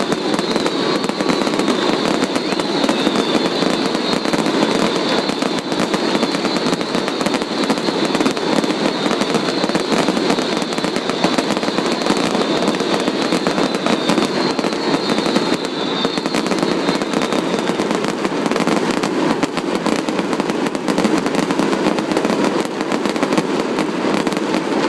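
Aerial fireworks going off in a dense, continuous barrage of rapid bangs and crackling with no pauses, and a high thin whistle-like tone that fades out about two-thirds of the way through.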